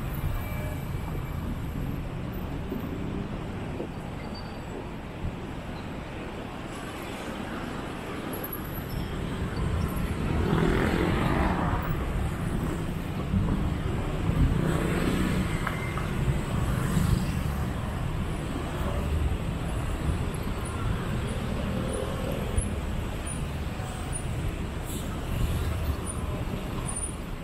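Steady city street traffic rumble. One vehicle passes close by about ten seconds in, and another a few seconds later.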